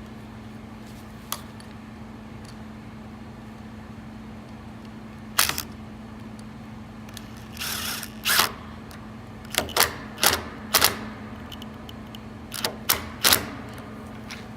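A dozen or so scattered sharp clicks and knocks, beginning about five seconds in, with a short scraping rasp among them, over a steady low hum.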